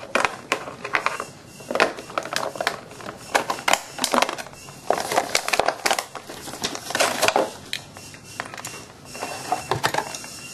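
Rigid moulded plastic packaging tray crackling and clicking as a waterproof MP3 player and its cable are pried out of it by hand. The clicks and rustles come in an irregular run.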